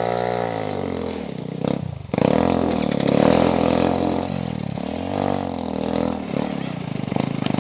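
Motorcycle engine running with the revs rising and falling unevenly. The revs drop sharply about two seconds in, then pick up again.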